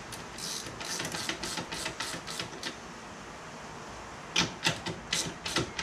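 Ratchet wrench with a 15/16 socket clicking as it is worked back and forth on the steering wheel's centre nut, loosening it. Two runs of quick clicks, about five a second, with a short pause between.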